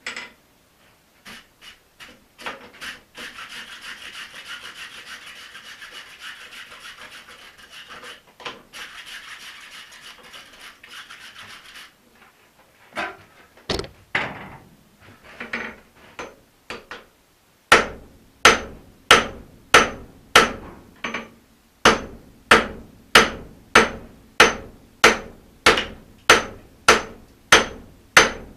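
Steady rushing noise for the first ten seconds or so, broken once. Then a hand hammer strikes the hot axe head on the anvil: a few scattered blows, then a steady run of sharp blows at about two a second, each leaving a faint high ring.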